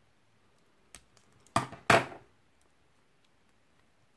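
Small blade cutting through the tape on a taped bundle of trading cards: a faint click about a second in, then two sharp clicks in quick succession, followed by quiet handling.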